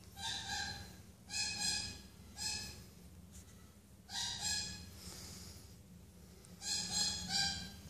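Baby African grey parrot chick making short, pitched calls, singly or two or three in a row, several times over while it is stroked.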